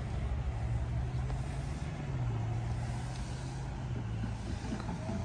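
A steady, low engine drone, its pitch dipping slightly about two seconds in.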